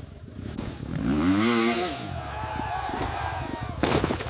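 Dirt bike engine revving up and dropping back, followed by a short harsh burst of noise near the end.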